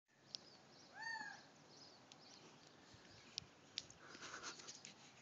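Faint wild bird calls: one mewing, cat-like call that rises and falls about a second in, with sharp high chips scattered through and a short burst of chatter near four seconds.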